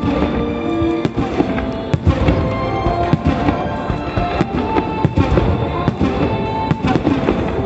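Aerial firework shells bursting one after another in a rapid run of booms, with music playing over loudspeakers underneath.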